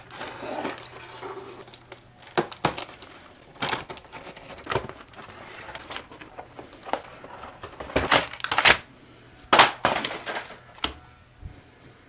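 A parcel being opened and its packaging handled: rustling and crackling of wrapping with irregular sharp clicks and knocks, the loudest cluster about two-thirds of the way through.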